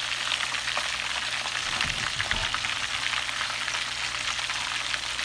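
Chicken pieces coated in crushed Hot Cheetos deep-frying in a pot of hot oil, the oil sizzling and crackling steadily. There is a brief low bump about two seconds in.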